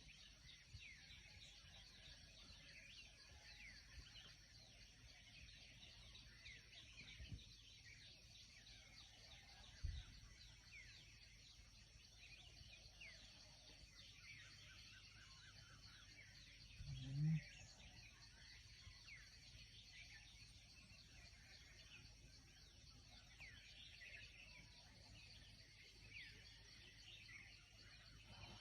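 Faint outdoor dawn ambience of many small birds chirping, over a steady high insect hum. A single low thump about ten seconds in, and a short low rising sound around seventeen seconds that stands out as the loudest moment.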